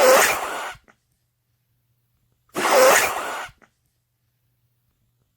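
A woman sneezing twice, each a sudden burst about a second long with a short voiced cry in it, separated by a couple of seconds of silence: hay fever sneezes.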